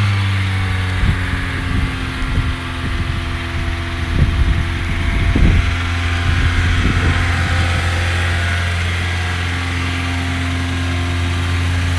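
1997 Honda CR-V's four-cylinder engine idling steadily through a disconnected exhaust, with scattered irregular knocks in the first half.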